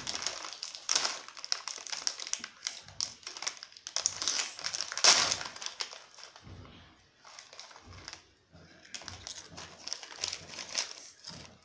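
Foil Doritos chip packet crinkling and rustling as hands rummage inside it, in irregular bursts that die down for a while past the middle.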